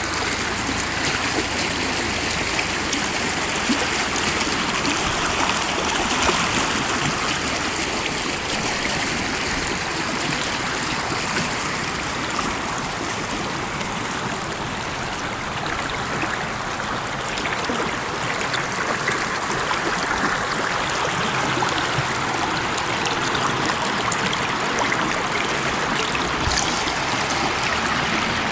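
Stream water rushing and splashing over rocks, a steady, continuous noise.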